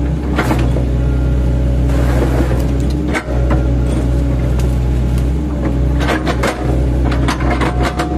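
An 8-ton class excavator's diesel engine runs steadily under load, with sharp knocks and cracks, thickest in the last couple of seconds, as its blade-fitted bucket chops oil palm trunks.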